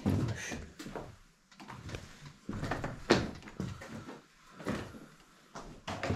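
Footsteps knocking and crunching over broken ceiling tiles and debris on a floor, a few irregular clatters and thuds with short quiet gaps, the loudest about three seconds in.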